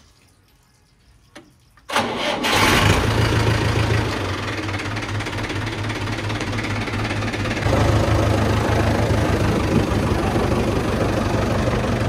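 A vehicle engine starts abruptly about two seconds in and settles into a steady low running. It grows louder about two-thirds of the way through.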